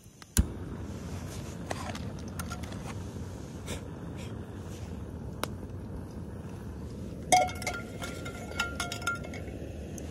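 A sharp click about half a second in, then a steady rushing noise; a few light knocks follow, and near the end several clinks of hard cookware ring briefly.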